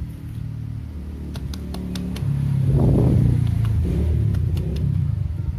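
A motor vehicle's engine running with a low hum, growing louder about two seconds in and loudest around three seconds. Light clicks and rustles of dry rice-husk potting medium being worked into a plastic pot sit over it.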